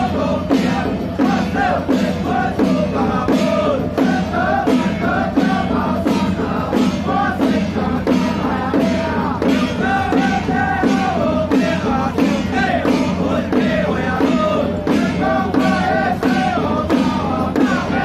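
Taiwanese temple-procession music: brass hand cymbals and drum strike a steady beat about twice a second under a wavering melody line.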